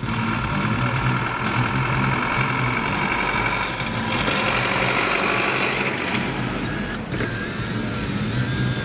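A motor vehicle running steadily, with engine noise.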